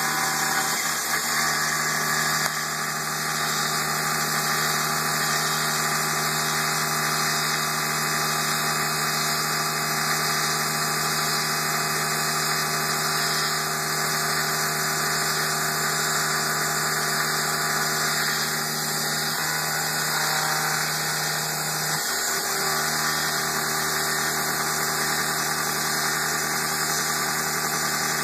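CNC mill spindle running steadily while its cutter mills slots into a metal TEC cooling block: a constant mechanical hum with steady tones and a high whine. The low hum breaks off briefly about three-quarters of the way through.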